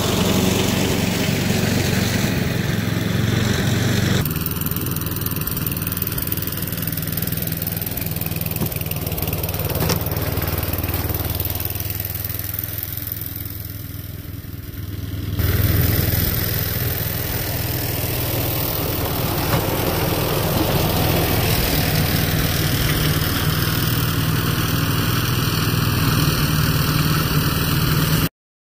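Two-stage snowblower's small engine running steadily. Its sound changes abruptly about 4 and 15 seconds in, and it is a little quieter just before the second change.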